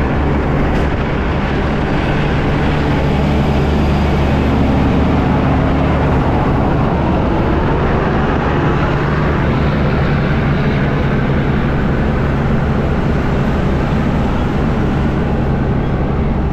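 International ProStar semi-truck cruising on the highway: a steady, unchanging drone of engine and road noise from inside the cab.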